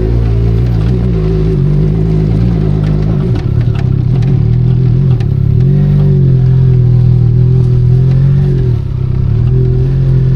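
Benelli Leoncino 500 Trail's parallel-twin engine running off-road under changing throttle, its revs dropping and picking up again several times. A few sharp knocks and clatter come from the rough trail about three to five seconds in.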